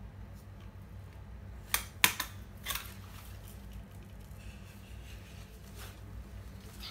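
Desktop stapler pressed down on the edge of a paper cone, snapping shut with a few sharp clicks close together about two seconds in as staples are driven through the paper.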